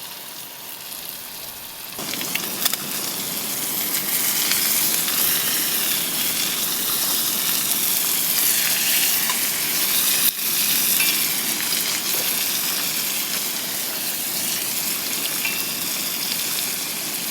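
Food sizzling and frying in a hot pan, a dense crackling hiss that grows louder about two seconds in and holds steady, with a single sharp click early on.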